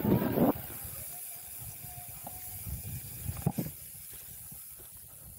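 Mountain bike rolling down a dirt trail: a steady low rumble of tyres and rattling parts with hiss, a loud jolt in the first half second and another short rattle about three and a half seconds in.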